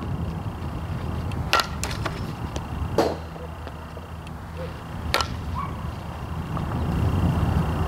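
Sharp cracks of a softball bat striking the ball, the clearest about five seconds in as the swing goes through, with two or three other sharp knocks earlier, over a steady low rumble.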